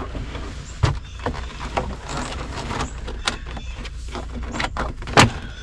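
Plastic steering-column trim and parts being handled and fitted, with scattered light clicks and knocks over a low steady hum, and one sharp snap about five seconds in as a piece pops into place.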